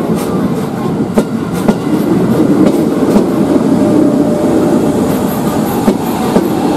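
JR 203 series KRL electric commuter train running past with a steady rumble, its wheels clicking now and then over rail joints. Its running sound is soft and smooth.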